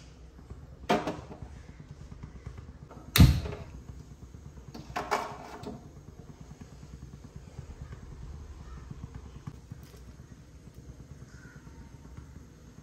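Metal clunks of an aluminium milk pan being handled and set down on a gas stove's burner grate: a knock about a second in, a sharp louder one a couple of seconds later, and a short clatter around five seconds, over a low steady rumble.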